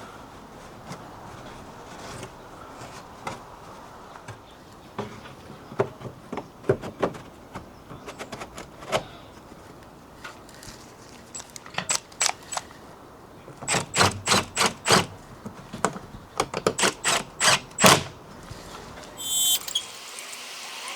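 Tools clicking and knocking on metal: scattered clicks, then a run of about a dozen quick knocks, then a short higher-pitched burst near the end.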